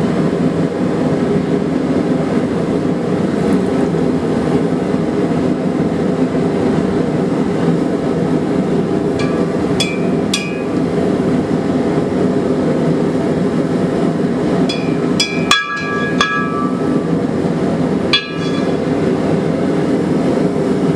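Steady low roar of a running forge, with a few sharp ringing clinks of steel on steel around the middle and again later, as the heated punch is handled for its oil quench.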